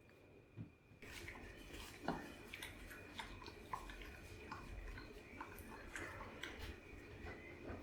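Bengal cat eating from its feeder bowl: faint, irregular small crunches and clicks of chewing, starting about a second in and going on steadily.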